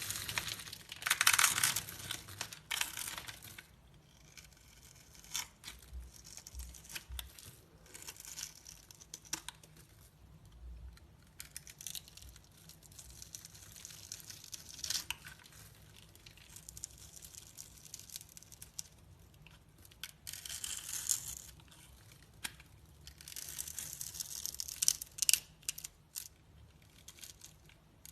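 Bar soap being cut with a knife: intermittent dry, crisp scraping and crumbling strokes, loudest about a second in and again near the end.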